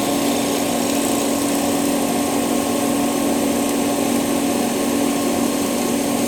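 Steady hum of a Felder FD 250 horizontal boring machine running with a 6 mm hollow square mortise chisel, mixed with the fan noise of the rotary three-phase converter that powers it.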